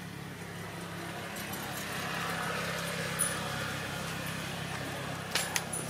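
A steady low hum with the wash of a vehicle passing, swelling through the middle and fading. A few sharp clicks come shortly before the end.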